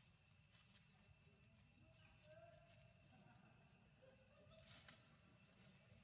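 Near silence: faint outdoor ambience with soft rustles and clicks in dry leaves, the clearest a little before the end.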